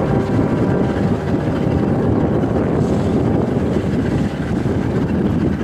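Motorboat running steadily under way, its motor and the rush of water mixed with wind buffeting the microphone.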